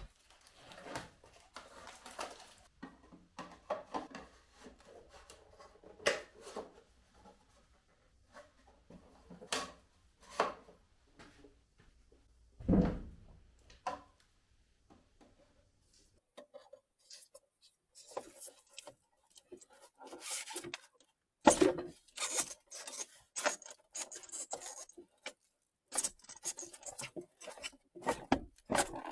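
Hand work with tools and building materials: irregular scraping and rubbing with scattered knocks, one heavier thump about halfway through, and quicker clicks and scrapes near the end.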